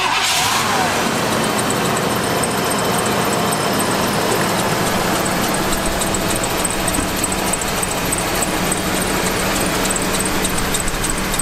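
1998 Chevy K1500's 5.0-litre (305) V8 idling, with a high-pitched squeak repeating several times a second from the serpentine belt drive, which is thought to be the belt's idler pulley.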